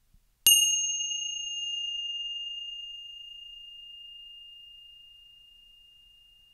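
A single high-pitched ding of a struck metal chime about half a second in, ringing one clear tone that fades away slowly over about six seconds.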